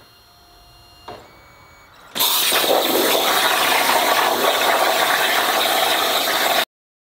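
Hypertherm plasma cutter on a CNC table starting a cut in metal plate: a click about a second in, then just after two seconds the arc fires with a loud, steady hissing rush that cuts off abruptly near the end.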